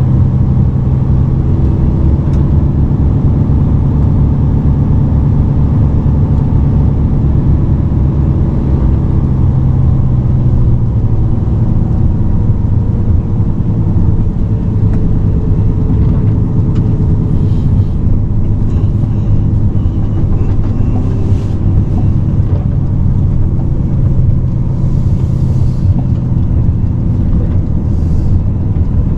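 Mercedes-Benz Actros SLT truck's diesel engine droning steadily, heard from inside the cab while the truck drives slowly. About ten seconds in the engine note drops lower and eases off, as when the driver lifts off the throttle. A few faint short hisses come near the end.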